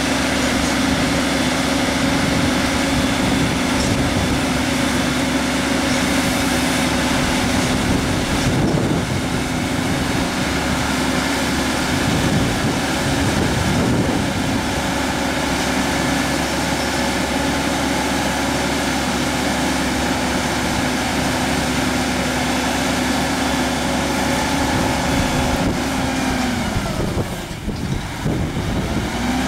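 Diesel truck engine running steadily at raised revs while the multilift trailer's hydraulic arm lifts and tilts a sugar cane bin. Near the end the engine note drops for a moment and then picks back up.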